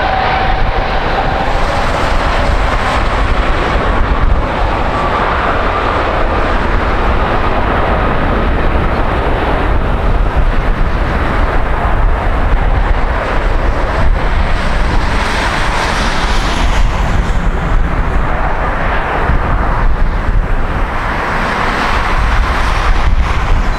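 Airbus A330-200 jet engines running at high power as the airliner starts its takeoff roll: a loud, continuous rumble with a faint whine rising in pitch in the first few seconds. Wind buffets the microphone.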